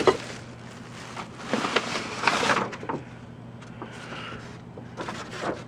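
Rummaging through stored things: a plastic bag rustling and cardboard boxes being shifted, with a knock at the start and scraping, rustling handling noise in the middle.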